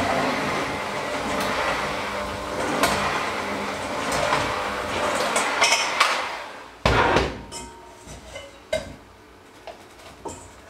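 Electric hand mixer with dough hooks running steadily in a stainless steel bowl of dough, switched off about six seconds in. A loud clatter follows, then a few light knocks as the dough is worked by hand in the bowl.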